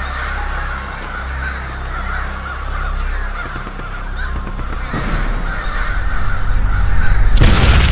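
A flock of crows cawing continuously over a steady low hum. Near the end a loud rushing noise swells up over them.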